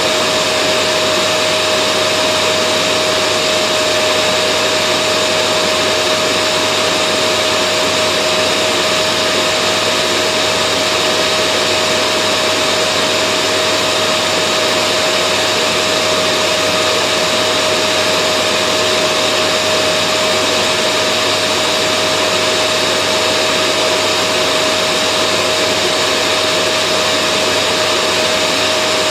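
Vacuum cleaner running steadily: an even rush of air with a constant motor whine, unchanging in pitch and level.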